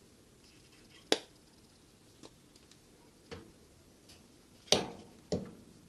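Sealing caps being screwed onto small syrup bottles, clicking as each seal locks: a sharp click about a second in and another loud one near the end, with a few fainter clicks between.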